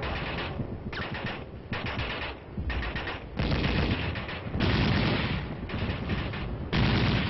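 Combat gunfire from an old documentary soundtrack: bursts of rapid machine-gun and rifle fire with short lulls between them, the loudest bursts in the second half.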